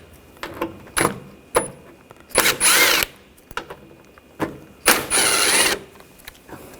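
Power tool with a T30 socket unscrewing the rear door-latch screws in two short bursts, with small metallic clicks between them as the socket is set on the screws.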